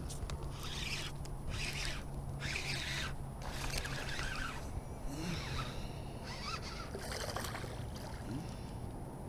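Baitcasting reel cranked in short spurts of winding, each about a second long, as line and lure are retrieved.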